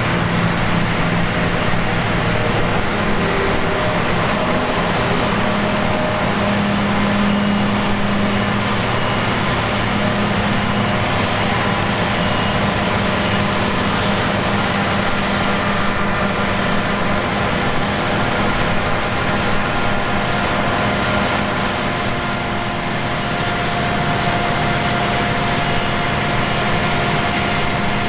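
Heavy diesel farm machinery running steadily under load, a continuous engine hum with several held mechanical whines over it. One higher whine grows stronger in the last few seconds.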